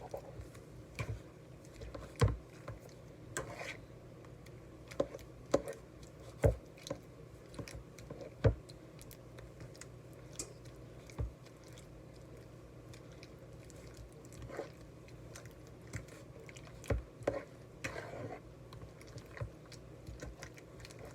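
A utensil stirring a thick cream cheese and heavy cream mixture in a bowl: irregular wet squishes and clicks and knocks against the bowl, over a low steady hum.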